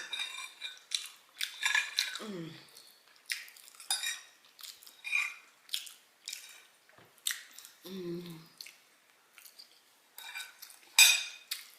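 Close-miked eating sounds: utensils clinking and scraping on a plate in scattered short strokes, with two brief hums from the eater and a louder sharp clink near the end.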